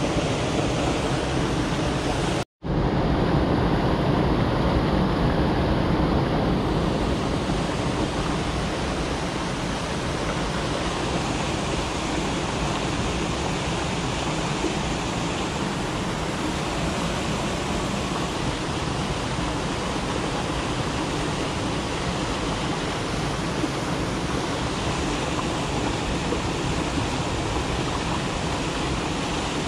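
Steady rush of a fast mountain stream spilling over a low concrete weir and through rapids. The sound drops out completely for a split second about two and a half seconds in.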